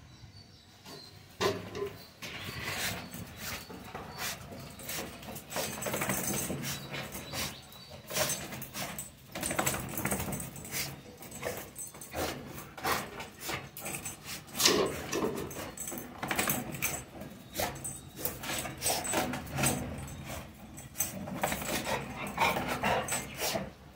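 Labrador retriever in a fit of excitement, whining and barking, among many sharp clicks and rattles. It starts about a second and a half in and keeps going in irregular bursts.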